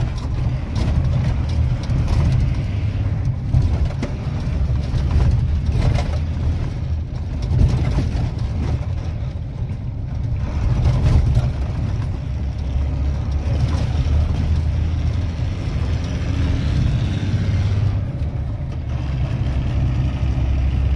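Truck's engine running under way, a steady low rumble, with frequent knocks and rattles as it drives over a potholed road.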